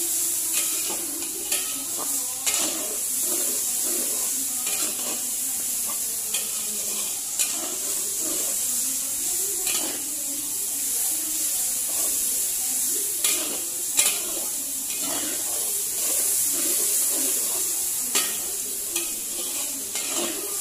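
Meat with chopped onion and garlic sizzling in oil in a metal wok while a long-handled metal ladle stirs and scrapes it, with scattered sharp clinks of the ladle against the wok.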